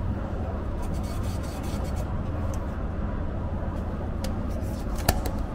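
Steady low rumble of a rail vehicle in motion, with light rattling clicks about a second in and one sharp click near the end.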